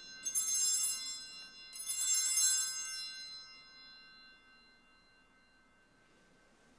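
Altar bells rung at the elevation of the chalice: two shakes about a second and a half apart, each ringing bright and high and dying away over a couple of seconds.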